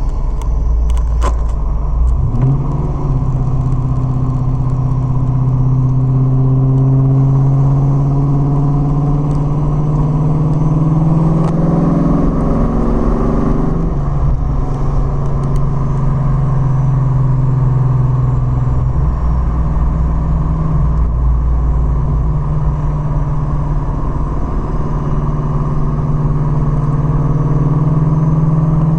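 2006 Pontiac GTO's 6.0 L LS2 V8 driving with a steady drone, joined by a high-pitched whine whose pitch glides with speed. The owner hears the whine from 4th gear until the car is nearly stopped, in or out of gear, so it follows road speed rather than engine load.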